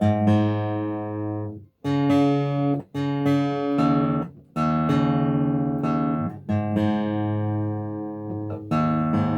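Epiphone Hummingbird acoustic guitar being played, a series of chords each struck sharply and left ringing for a second or two; the guitar is not in tune.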